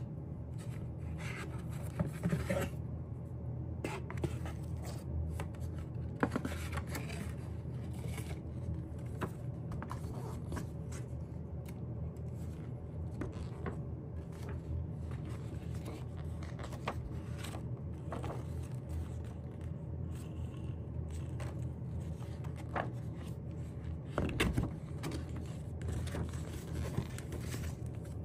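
Paper and card from a K-pop album's contents being handled by hand: rustling, scraping and light ticks, a little louder about 2, 6 and 24 seconds in, over a steady low hum.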